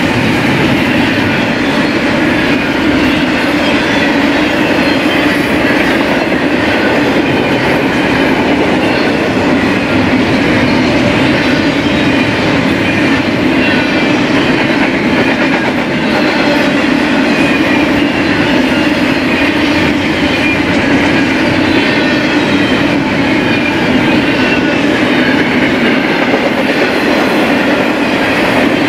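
BNSF freight train rolling past, a loud, steady rumble of wheels on rail with faint high wheel squeals.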